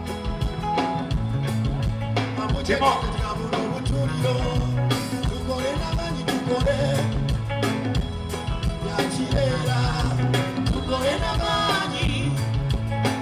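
Band music playing through a stage sound system during a sound check, with a repeating bass line under a wavering lead melody.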